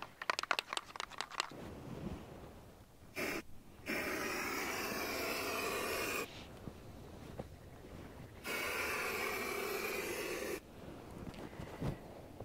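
Aerosol can of marking spray paint: the mixing ball rattles rapidly as the can is shaken for the first second and a half, then the can sprays with a brief spurt and two long hisses of about two seconds each.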